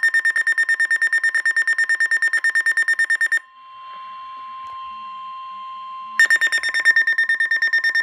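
Eton American Red Cross weather radio's alert alarm beeping rapidly and loudly in a high pitch for a tornado warning. About three and a half seconds in it breaks off for a steady lower tone over static, the NOAA Weather Radio warning alarm tone, and the rapid beeping starts again about six seconds in.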